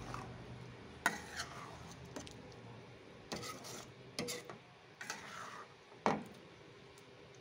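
Metal spatula stirring a thick fish-roe mixture in a metal cooking pan, scraping and knocking against the pan in irregular strokes. The sharpest knock comes about six seconds in.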